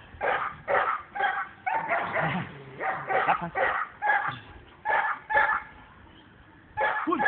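Young female dog barking repeatedly in quick runs, roughly two short barks a second, with a brief pause near the end before two more.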